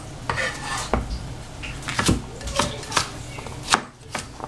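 Cleaver chopping squash on a plastic cutting board: about five sharp, separate knife strikes at an uneven pace, the loudest about two seconds in.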